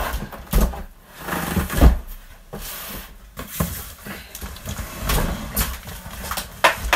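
A large cardboard shipping box being moved and handled: irregular thumps and knocks, with scraping and rustling of the cardboard in between. The heaviest thump comes about two seconds in, and a sharp knock near the end.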